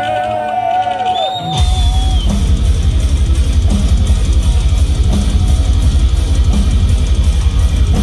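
Heavy metal band playing live over a festival PA: a wavering held tone, then about a second and a half in distorted guitars, bass and drums come in together at full volume and keep going in a steady driving rhythm.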